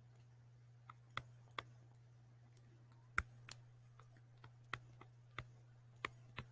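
Scattered light clicks and taps from a stylus on a tablet while words are handwritten, about nine at irregular intervals, over a faint steady low hum.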